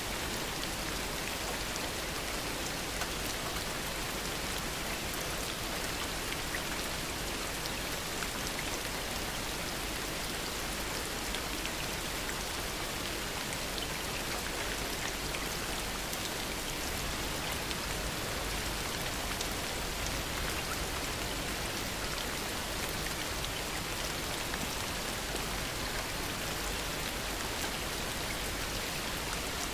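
Heavy rain falling steadily, a dense even hiss with countless small drop ticks. No thunder.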